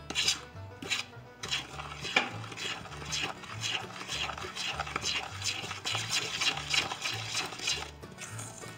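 A fork stirring and scraping through flour and wet zucchini bread batter in a stainless steel mixing bowl: quick repeated strokes, several a second, with a light scraping against the metal bowl.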